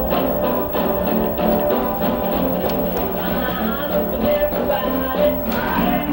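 Rock and roll music with guitar over a steady beat.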